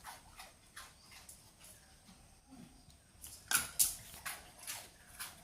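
Labrador crunching a dog biscuit: scattered light cracks, with two sharper crunches about three and a half seconds in.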